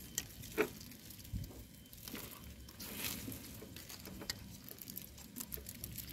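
Faint handling noise: scattered light clicks and rustling as parts are handled and put back in place.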